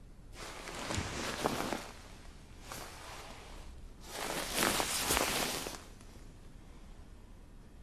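Bedding rustling as two people shift in bed, in three bursts, the last and loudest about four seconds in.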